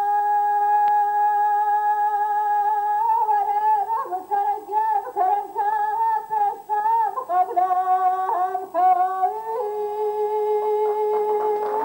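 Female Kurdish dengbêj singer singing unaccompanied. She holds one long note, moves into quavering, ornamented phrases about three seconds in, then settles onto another long held note near the end.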